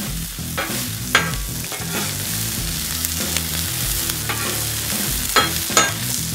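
Diced onions sizzling in oil on a hot Blackstone steel griddle, with several short scrapes as a metal spatula pushes and turns them on the cooktop.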